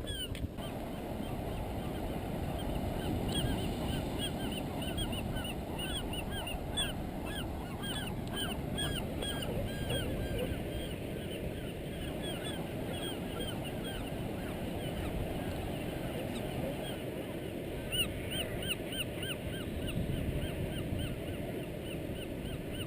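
Many birds calling over and over in short arched calls, over a steady low rush.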